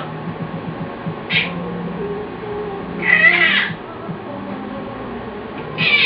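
Domestic cat meowing: a brief high call about a second in, a longer drawn-out meow around three seconds in, and another beginning near the end.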